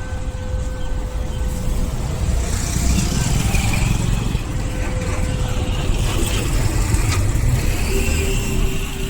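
Road traffic: motor vehicles running and passing, a steady low rumble of engines and tyres.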